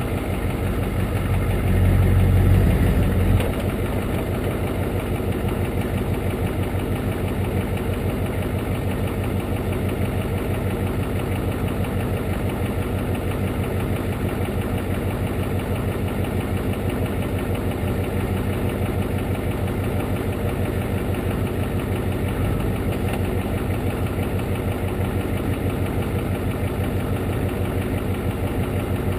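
The Ford F-250's 7.3-litre IDI V8 diesel engine running steadily as the truck crawls along a dirt trail, heard from outside at the front fender. It gets briefly louder about two seconds in, then settles back.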